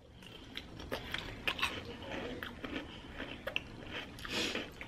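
Close-up crunching and chewing of mouthfuls of sweetened breakfast cereal in milk, Froot Loops and Frosted Flakes, with many small irregular crunches.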